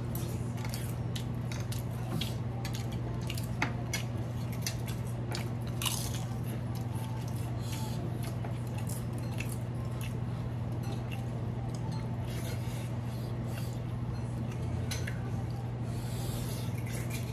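People eating at a table: chewing, biting and crunching crisp wafers, with scattered small clicks of spoons and fingers on plates, over a steady low hum.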